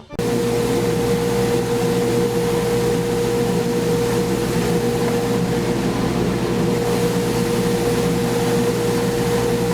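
Table saw running steadily with a constant high whine as a board is passed across the blade at an angle through a jig, cutting a shallow cove.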